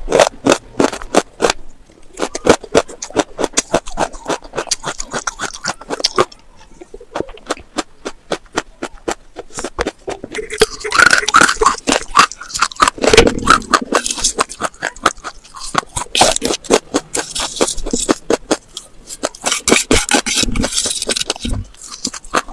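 Close-miked crunching of slate pencil pieces being chewed: a dense run of crisp clicks and crackles. Around the middle comes a spell of a metal spoon scraping through slate powder in a glass bowl.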